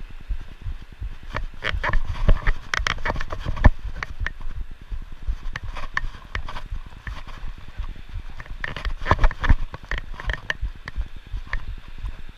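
Footsteps crunching and clattering over loose stones and rocks, in two bouts of quick steps, over a low rumble.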